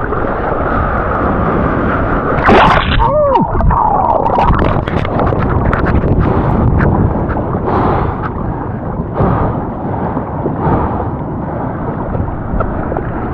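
Heavy surf churning around a camera in the water: a steady rush of water, with a louder splash and bubbling gurgles about two and a half seconds in.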